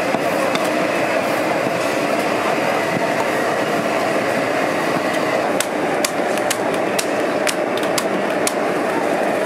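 Working noise of a street-food stall: a steady rush of background noise, and from a little past halfway a quick, irregular run of sharp knocks and clacks.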